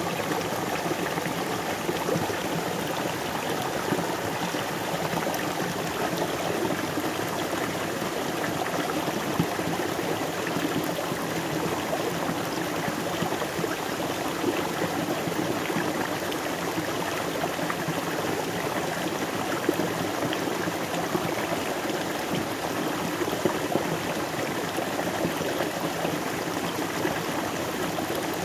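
River water flowing steadily over stones, a continuous babbling rush with small splashes and gurgles.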